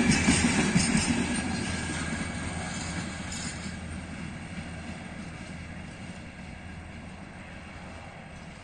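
Freight train wagons rolling over the rails as the tail of the train passes and draws away, the rumble fading steadily.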